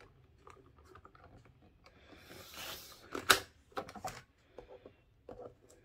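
Sliding paper trimmer cutting through a stack of several layers of patterned paper: the blade carriage scrapes down the rail with a hiss, then gives a sharp clack, followed by a few lighter clicks and paper rustling as the cut pieces are handled.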